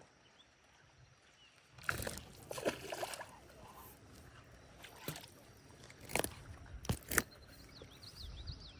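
A small smallmouth bass thrashing and splashing at the water's surface on the line: a burst of splashing about two seconds in, then a few sharp single splashes.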